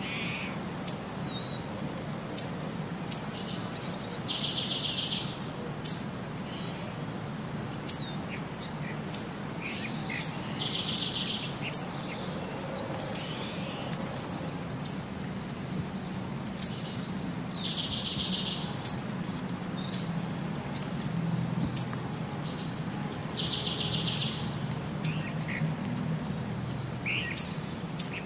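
Birdsong ambience: sharp high chirps about once a second and a buzzy trill repeating about every six and a half seconds, over a low steady rumble. The pattern repeats evenly, like a looped background track.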